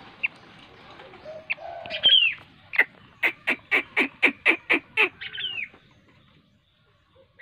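Raptor nestling calling: a few thin down-slurred calls, then a quick run of about eight short chirps at about four a second near the middle, and one more down-slurred call.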